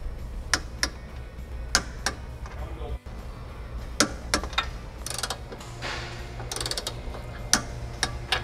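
Torque wrench ratcheting and clicking as the subframe brace bolts are brought up to torque spec: sharp clicks scattered through, often in pairs, over low background music.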